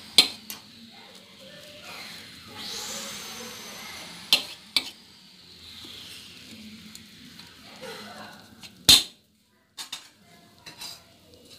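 A knife scoring a slab of hot Mysore pak on a stainless steel plate: gritty scraping with a few sharp clinks of the blade against the steel, one near the start, two close together about four to five seconds in, and the loudest about nine seconds in.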